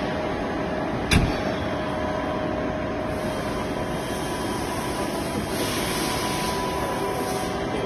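Backhoe loader's diesel engine running steadily, with one sharp knock about a second in.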